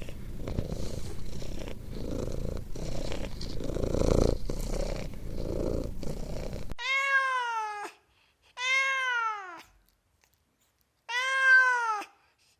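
Domestic cat purring, a low rhythmic rumble that pulses in and out. It breaks off abruptly, and then a cat gives three drawn-out meows, each rising and then falling in pitch.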